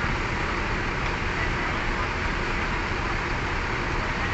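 Steady rumble of bus engines and road traffic, even and unbroken.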